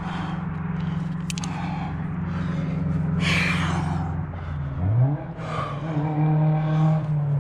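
A motor vehicle engine running steadily, loud against the surroundings; about five seconds in its pitch drops and climbs again before holding steady. A sharp click sounds about a second in.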